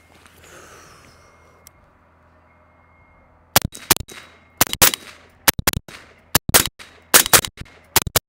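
AR-15-style rifle fired in a fast string of paired shots, starting about three and a half seconds in. The two shots of each pair come a fraction of a second apart: predictive doubles.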